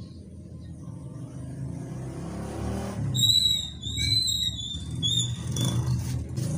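A motor vehicle's engine running low and steady, growing louder about halfway through, with several short high-pitched chirps over it.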